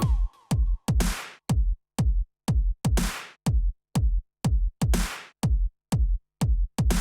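Electronic intro music: a drum-machine beat with a kick drum about twice a second and a crash-like hit every two seconds.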